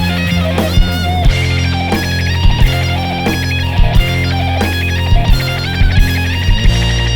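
Rock band playing an instrumental passage with no vocals: electric guitar over bass and drums, the drum hits landing in a steady beat.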